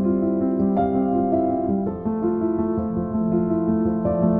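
Background music: soft piano playing held chords, the chord changing about two seconds in.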